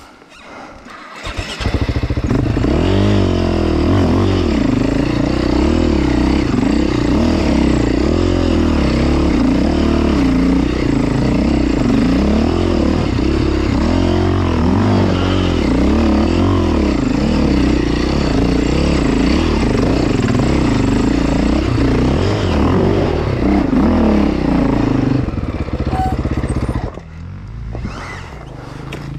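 2004 KTM 450 enduro motorcycle's single-cylinder four-stroke engine running hard and being revved, its pitch rising and falling again and again. It comes in abruptly about a second and a half in and drops much quieter near the end.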